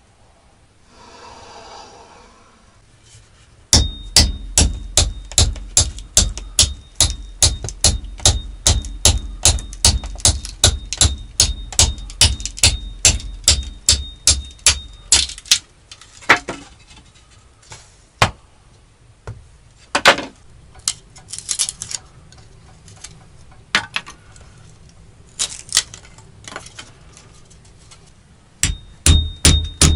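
Axe splitting kindling on a wooden chopping block: a fast, even run of sharp knocks, about three a second, with a high ringing tone under them. After that come scattered single knocks, and near the end the fast knocking starts again.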